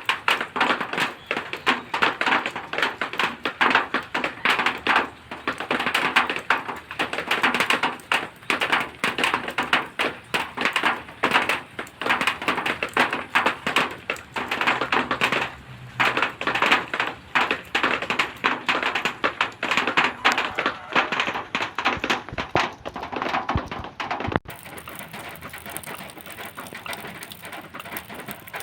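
Rain falling on zinc sheeting: a dense, irregular patter of drops tapping the metal. About 24 seconds in it changes abruptly to a quieter, steadier hiss of rain.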